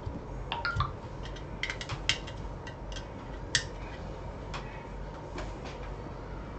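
Light clicks and small metallic clinks of hand tools being handled on a repair bench, scattered through the first four seconds, over a steady low hum.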